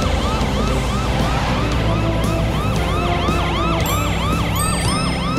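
Cartoon police truck siren in a fast rising-and-falling yelp, about three sweeps a second, over a steady low rumble.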